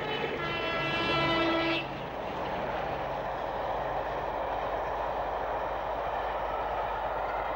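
Diesel locomotive horn blown once for about a second and a half, followed by the steady running noise of the train passing.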